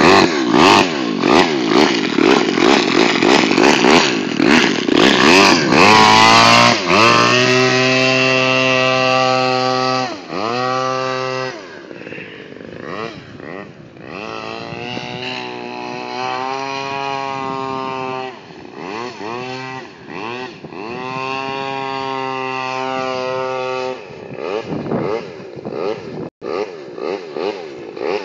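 A radio-controlled model airboat's small engine and caged propeller running. For the first several seconds it is loud and mixed with wind buffeting the microphone. After that it is a clear, steady engine note whose pitch dips and climbs again several times as the throttle is worked on the water.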